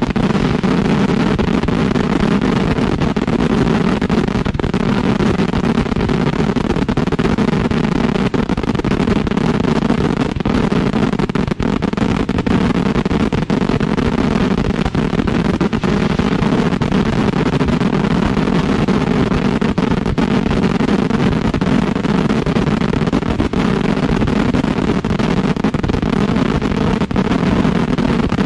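Fireworks finale at close range: ground racks firing a continuous barrage of explosions, the bangs so dense that they merge into one unbroken, loud noise with no pauses.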